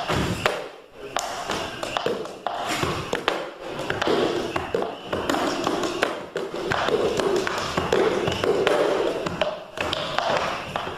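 Indistinct voices with many sharp taps and knocks.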